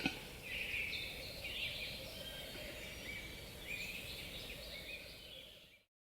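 Western capercaillie displaying: a sharp click right at the start, then a run of high, scratchy and chirping bird sounds with a faint background hiss. The sound stops abruptly near the end.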